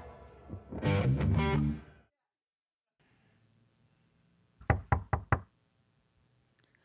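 A short guitar music sting ends about two seconds in. After a pause, four quick knocks come near the end: a knock at the door.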